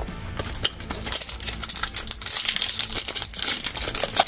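Foil wrapper of a Pokémon TCG booster pack being torn open and crinkled in the hands as the cards are pulled out, starting about half a second in.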